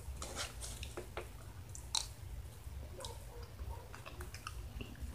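A person chewing a mouthful of enchilada close to the microphone, with scattered small wet mouth clicks and one sharper click about two seconds in.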